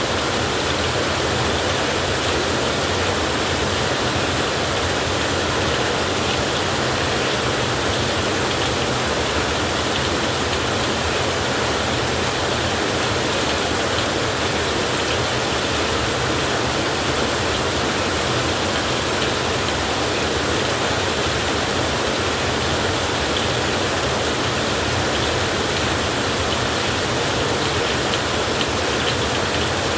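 Steady heavy rain falling, an even unbroken hiss with no thunderclaps.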